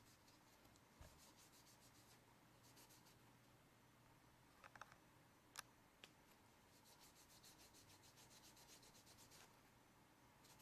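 Faint quick strokes of a damp paper towel rubbing over the aluminium casing of a second-generation iPod Shuffle, with a few light clicks around the middle.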